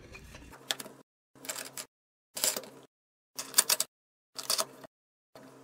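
Wing screw of a screen-frame clamp being turned down onto an aluminium screen frame: a short scraping sound with each twist, repeating about once a second.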